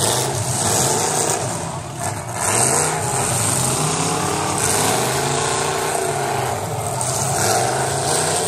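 Several demolition derby cars' engines running and revving together, their overlapping notes rising and falling in pitch.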